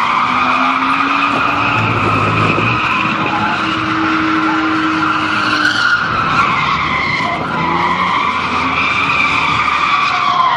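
Car tyres squealing in a long continuous screech as the car drifts sideways, heard from inside the cabin, with the engine running hard underneath. The squeal's pitch wavers, dipping briefly a little past the middle and again at the end.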